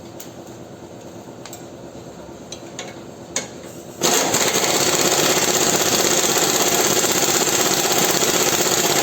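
A few light metallic clicks of work on the suspension, then about four seconds in a power tool starts abruptly and runs at full speed, loud and steady.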